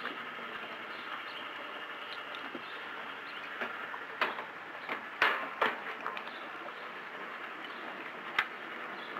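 Boat being refuelled at a marina gas pump: a steady hiss with a handful of sharp knocks and clunks, the loudest a little past the middle and one more near the end.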